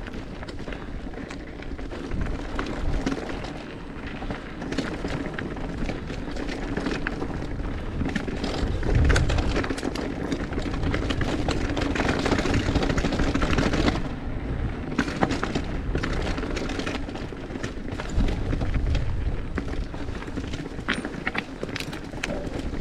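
Mountain bike riding down a dirt trail: tyre noise over dirt and rock, with many short knocks and rattles from the bike over bumps, louder for several seconds in the middle.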